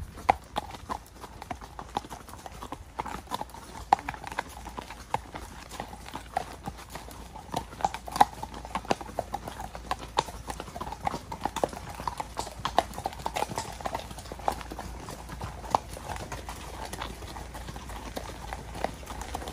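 Several horses' hooves clip-clopping on a tarmac lane, an uneven stream of sharp clicks from more than one horse.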